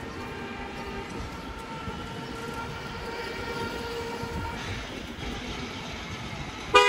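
Steady mechanical whine of several held tones over street noise, cut by one short, loud horn blast near the end.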